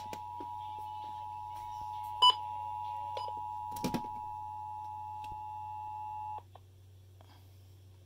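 Emergency Alert System two-tone attention signal playing from a weather radio's speaker: two steady tones sounding together, which cut off suddenly about six and a half seconds in. It marks the start of a required monthly EAS test. A sharp click about two seconds in and a couple of knocks near four seconds sound over it.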